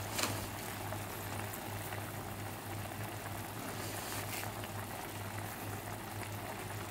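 Tomato and chilli sambal sauce simmering in a frying pan, bubbling softly and steadily over a constant low hum, with a short click just after the start.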